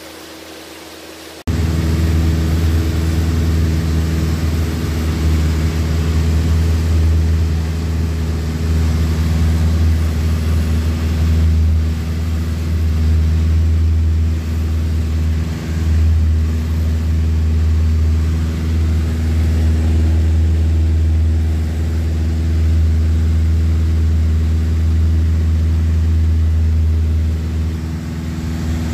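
Van's RV-4 light aircraft's piston engine and propeller running steadily in flight, heard from inside the cockpit. It comes in suddenly about a second and a half in.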